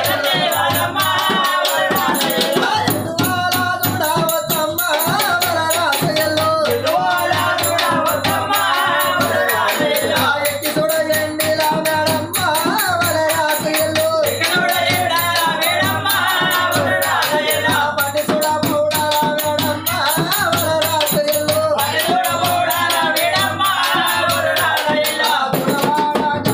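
Men singing a Yellamma devotional folk song, backed by a hand drum beaten in a slow, steady pulse and fast, continuous jingling percussion.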